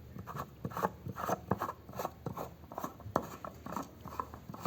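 Handling noise from an opened wireless microphone being turned over in the hand: irregular small clicks, scrapes and rubbing.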